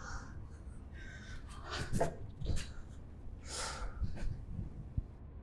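A person breathing heavily in a small room: a few short, audible breaths and exhalations, with a soft knock about five seconds in.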